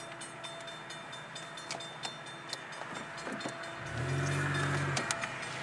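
Distant Canadian Pacific freight train approaching, heard from inside a car: a faint steady rumble with small clicks, and one low steady tone about a second long just past the middle.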